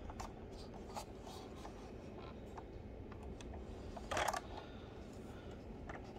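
Soft rubbing and light clicks of fingers handling a 1:18-scale diecast model car, with one louder brushing rub about four seconds in.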